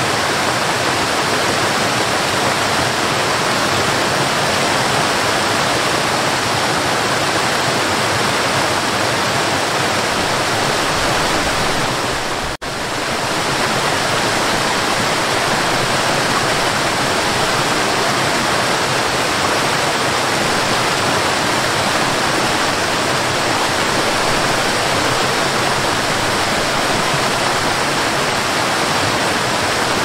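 Small cascading waterfall rushing steadily over mossy rocks into a stream, a dense, even splashing roar of falling water, which drops out for an instant near the middle.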